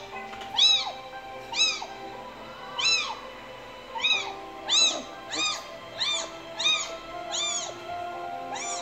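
A four-week-old kitten crying over and over, about ten high meows that each rise and fall in pitch, played back from a video. Soft steady music runs underneath.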